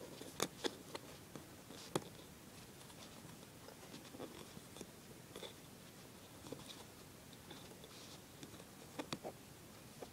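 Faint rustling and scattered small clicks of fingers handling cotton loops on a potholder loom, with sharper clicks about half a second and two seconds in and a pair near the end.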